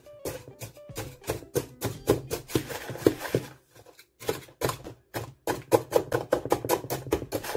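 Wooden spoon clacking against a plastic mixing bowl while stirring wet cookie ingredients: quick knocks about four a second, with a short break a little past halfway.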